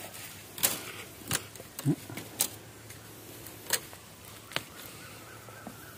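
Dry, charred bamboo stems and litter snapping and crackling under gloved hands as they work at the base of a bamboo clump, with about half a dozen sharp cracks at uneven intervals.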